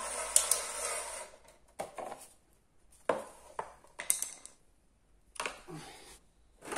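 Scattered short knocks and metallic clinks, about eight in all with quiet between them, from tools and parts being handled during workshop work on a motorcycle.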